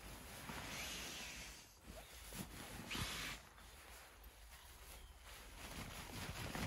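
Rustling and handling noises: a swishing rustle lasting about a second from about half a second in, a shorter one about three seconds in, and scattered light knocks.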